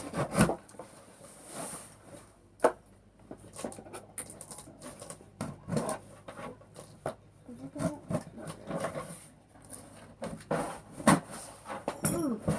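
Hands working at a cardboard shipping box and its tape and wrapping: irregular scratching, rubbing and knocking of cardboard, with sharp clicks and taps scattered throughout.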